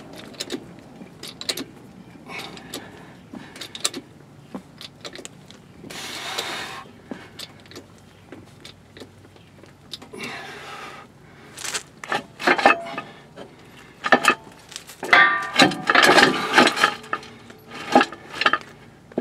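Scattered metallic clicks and clanks from a steel jack handle and a heavy-duty jack stand as the motorhome coach is jacked up, with two short rushes of noise and a louder run of ringing metal clanks in the second half.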